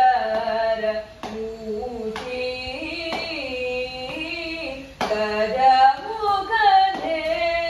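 A girl singing a melody with long held notes that slide from pitch to pitch. A few sharp hand slaps, roughly a second apart, keep time under the song.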